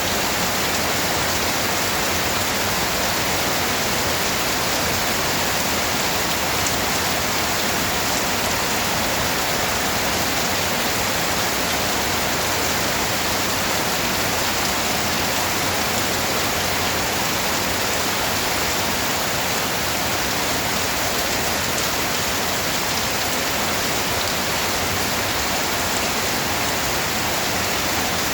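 Steady, even rain with no breaks or single louder drops.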